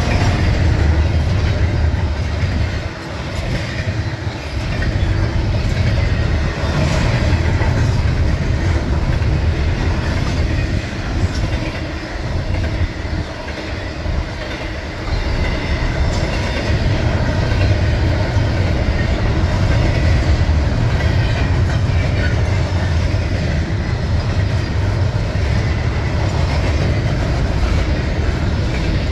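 Double-stack intermodal well cars rolling past at trackside: a steady low rumble of steel wheels on rail with some clicking over the rail joints, easing briefly a few times.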